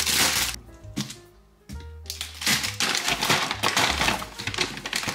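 Plastic ingredient bags and a brown paper bag rustling and crinkling as they are handled and opened, in short bursts at first and then almost continuously from about two seconds in. Background music plays underneath.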